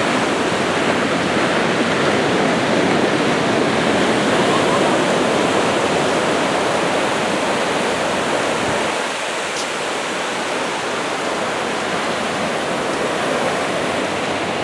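Steady rushing of small waves washing onto a sand beach, easing a little about nine seconds in.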